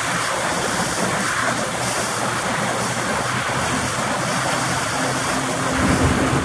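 Pontoon boat's outboard motor running steadily under way, a low hum under a constant rush of wind and water.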